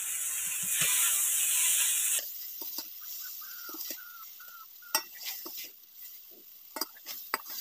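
Water spinach sizzling in a large metal wok, the sizzle cutting off about two seconds in; then a metal spatula scraping and clinking against the wok and a plate as the fried greens are scooped out.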